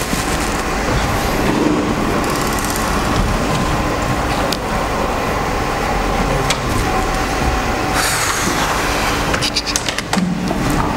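Steady loud hum and hiss of a lecture hall's background noise, with a few short scratchy strokes of a marker writing on a whiteboard, mostly near the end.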